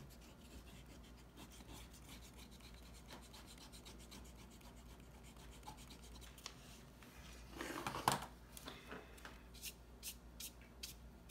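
Eraser rubbing lightly over watercolour paper, lifting pencil lines. Then a wide, dry bamboo-handled brush is swept across the paper: one louder swish followed by several short, quick strokes.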